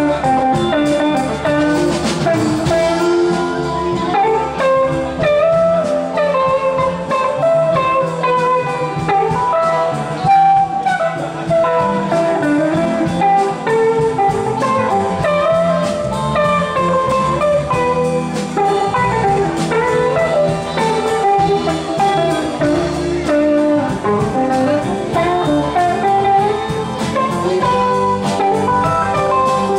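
Live band music: a Stratocaster-style electric guitar plays busy, shifting melodic lines over electric bass and a drum kit.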